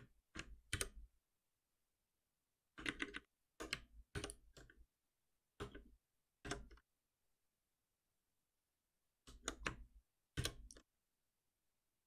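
Computer keyboard keystrokes in short clusters of a few keys each, with silent gaps between, as shortcuts and code edits are typed.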